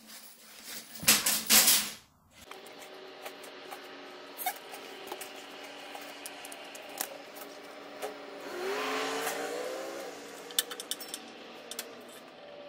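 A quick run of hammer blows about a second in. Then comes a steady hum with scattered light ticks, and a rising whine for about a second around the middle.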